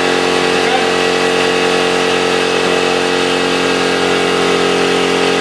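Steady, even hum of a running motor or machine, with several fixed tones and no change in speed.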